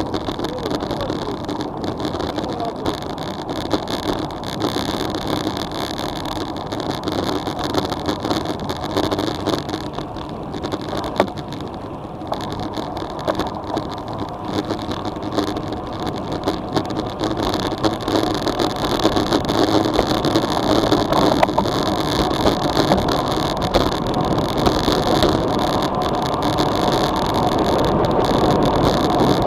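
Steady rush of wind and tyre noise on a bicycle-mounted action camera during a road-bike descent, growing louder in the second half as the speed builds.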